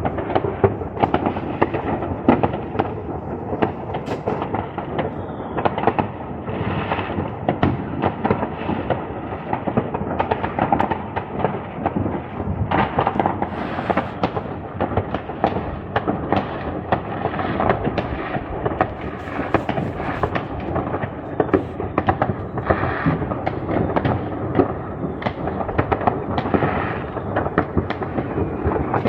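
New Year's Eve fireworks and firecrackers going off continuously: a dense, unbroken crackle of many overlapping bangs with a rumble of distant explosions underneath.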